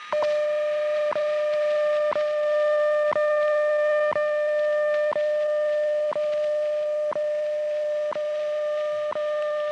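WWV time-signal station received on a shortwave radio: its steady 600-hertz standard tone comes on at the start, with a short tick once a second breaking into it.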